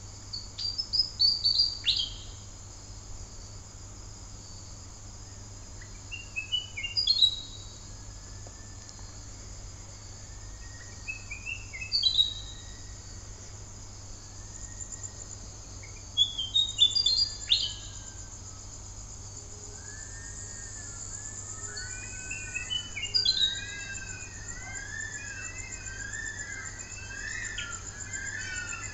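A willie wagtail sings its night song: short phrases of quick, stepped, falling notes, repeated about every five seconds. From about two-thirds of the way through, bush stone-curlews join in with many overlapping rising-and-falling wailing calls. Steady high insect trilling runs underneath.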